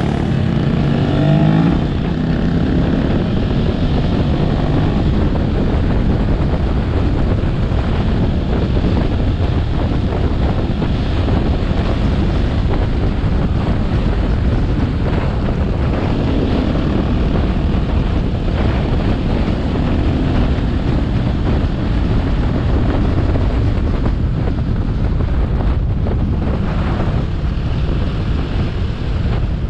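A vehicle's engine running steadily while under way, mostly buried in a loud rumble of wind on the microphone. Its pitch rises and falls faintly now and then.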